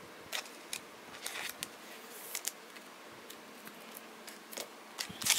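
Faint clicks and light scrapes of Panini Prizm trading cards being handled and slid against each other, growing a little louder near the end.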